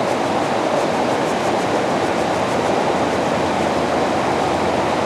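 Steady rush of river water flowing over shallow rapids, an even noise with no change.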